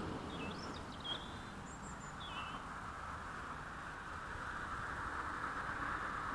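A few short bird chirps and twitters in the first two and a half seconds, over a steady rushing outdoor background.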